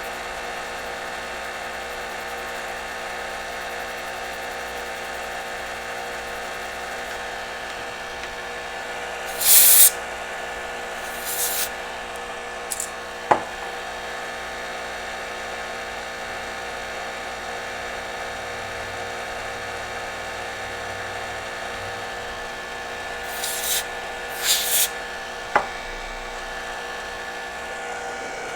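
Steady electric whir of a small workbench motor or fan. Short hissing bursts come twice in a cluster, once about a third of the way in and again near the end, and two sharp clicks follow them.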